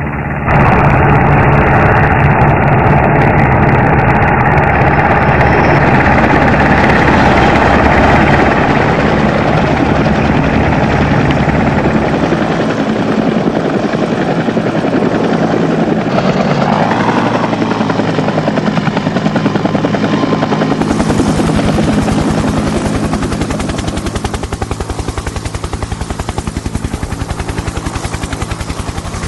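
Helicopter sound effect: a full-size helicopter's rotor beating fast and steadily over its engine, with a shift in the sound about two-thirds of the way through.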